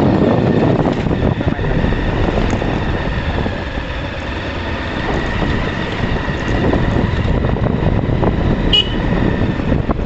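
Motorbike riding along a rough dirt road: steady engine and road noise throughout, with a brief high chirp near the end.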